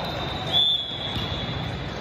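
Referee's whistle blown once: a steady high tone lasting about a second, setting in about half a second in, over the steady background noise of a large sports hall.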